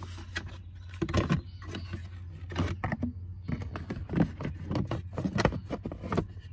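Plastic blower motor cover being fitted over the heater blower housing: a string of light plastic knocks and clicks as it is handled into place, over a steady low hum.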